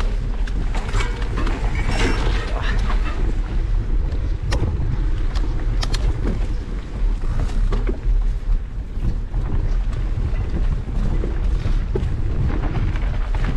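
Mountain bike riding a bumpy grassy singletrack: steady wind rumble on the microphone, knobby tyres rolling over dirt and grass, and frequent sharp clicks and rattles from the bike jolting over bumps.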